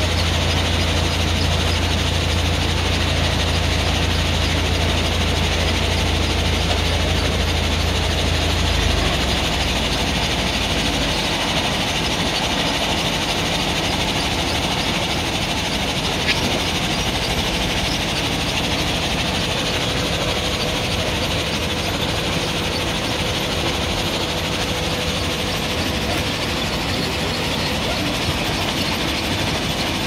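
JCB backhoe loader's diesel engine running steadily as its rear bucket digs into sand, with a constant mechanical hum. A deep low drone in the engine sound drops away about nine seconds in.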